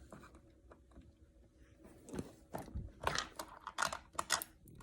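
Hands working a plastic toy and its packaging: quiet at first, then a run of small clicks and crinkles from about two seconds in, as little doors and taped compartments are pried open.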